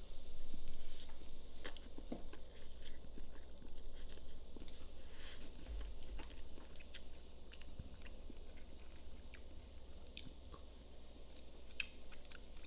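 A person chewing mouthfuls of orange chicken and rice. A fork clicks lightly on the plate now and then.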